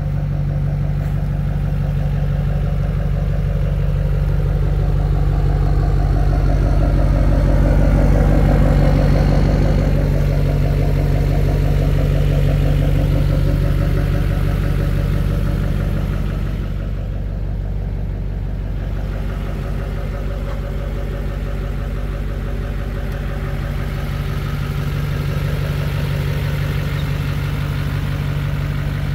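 Hummer H1's 6.6L Duramax V8 turbodiesel idling steadily, swelling louder for a few seconds about eight seconds in.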